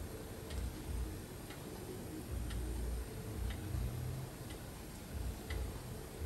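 Faint, even ticking, about one tick a second, over a low rumble of room noise.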